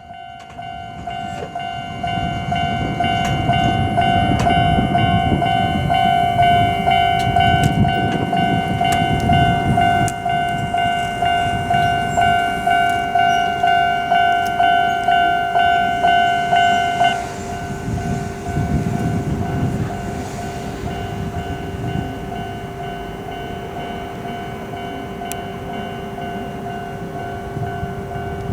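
Japanese level-crossing warning bell ringing in a steady, fast repeating "kan-kan" while a train passes, its wheel rumble swelling and fading. About seventeen seconds in, the bell abruptly changes to a quieter one, and a second train rumbles by.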